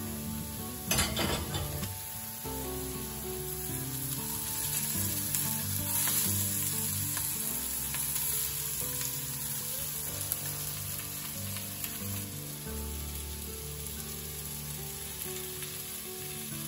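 Zucchini and eggplant sizzling in a hot frying pan, with a loud crackling burst about a second in as oil goes into the middle of the pan; the sizzling carries on steadily as cubes of chicken breast are added.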